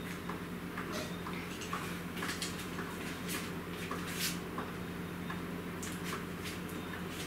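Scattered clicks and short rustles from someone settling in close to the microphone, over a steady low hum.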